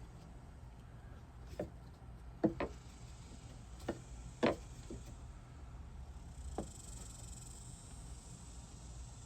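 A handful of short, irregular knocks and taps as 1x3 wooden furring strips are handled and pressed into place; the two loudest come about two and a half and four and a half seconds in.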